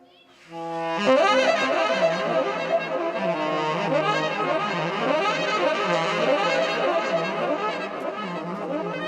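Saxophone and piano playing an instrumental passage: after a brief hush, a held note comes in about half a second in, then fast rising-and-falling runs over a sustained low note.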